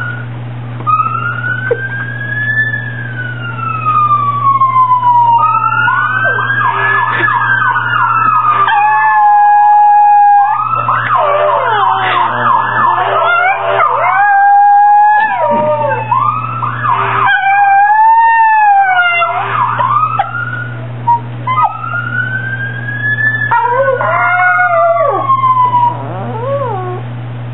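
A fire truck siren wails in slow rising and falling sweeps. A chihuahua howls along with it in several long, wavering howls, with a steady low hum underneath.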